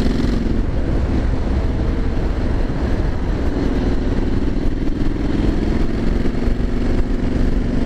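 Triumph Street Scrambler 900's parallel-twin engine running at a steady cruise under way, its pitch held nearly even, over a steady rush of wind and road noise.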